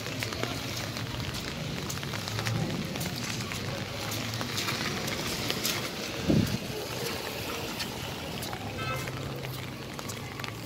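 Wet-street rain ambience: a steady hiss with scattered ticks over a low hum. About six seconds in, a loud bump as the phone brushes against clothing.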